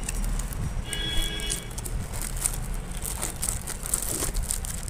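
Paper parcel packaging being handled and opened: rustling and crackling throughout, with a brief high-pitched tone about a second in.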